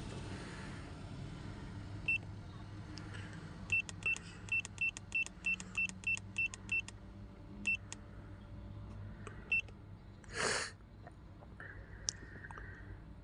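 Xtool X100 Super2 handheld key programmer beeping at each button press as its menu is scrolled: short high beeps, about three a second for a few seconds, with a few single beeps before and after. A short burst of noise comes near the end.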